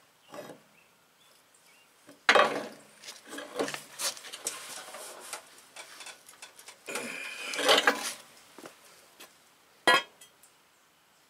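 Steel tool clanking and scraping against the steel bracket of a mower deck's anti-scalp roller as it is levered to bend the bracket back into place. Two bursts of rattling metal contact, then a single sharp clink near the end.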